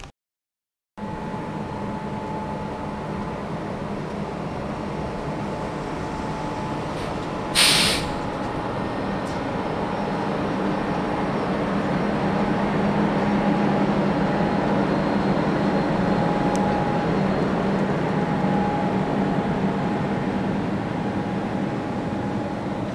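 SNCF electric locomotives moving slowly through a station, a steady hum from their motors and cooling blowers that grows louder as they pass and then eases. A short, sharp hiss of released air just under 8 seconds in, typical of an air-brake release.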